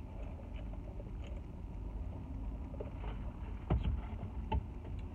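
Steady low rumble inside a parked car, with a few small clicks and two sharp knocks about a second apart near the end.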